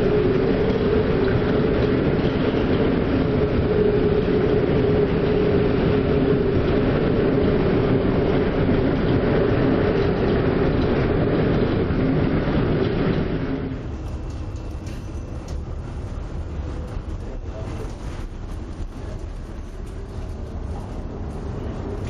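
Storm wind and heavy seas heard from aboard a ship: a loud, dense rushing with a steady droning hum under it. About fourteen seconds in it changes abruptly to a quieter rushing with a few faint knocks.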